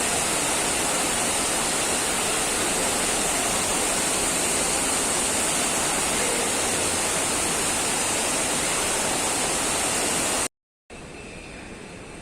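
Steady, even rushing noise that cuts off abruptly about ten seconds in.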